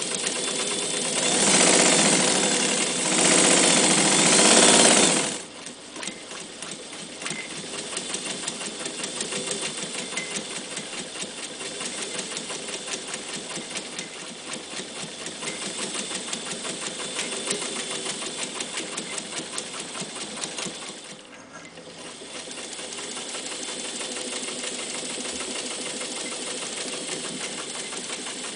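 Jones 104 electric sewing machine stitching through four layers of denim. It runs loudest for the first five seconds, then settles into a steady, even needle beat. It stops briefly about 21 seconds in, then runs on.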